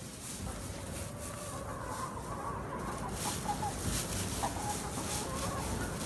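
A flock of laying hens clucking softly, short low calls coming from several birds at once.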